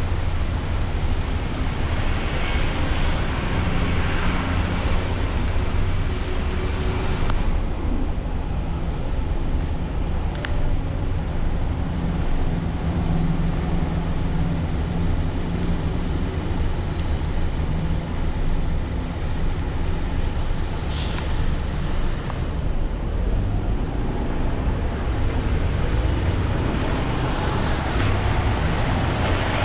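A car driving through city traffic: a steady low rumble of engine and road noise with tyre hiss. About two-thirds of the way through comes a short, sharp hiss.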